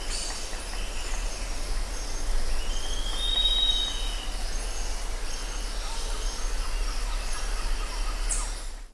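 Birds whistling and calling over a steady low rumble, with short high notes repeating and one longer whistle rising and falling about three seconds in.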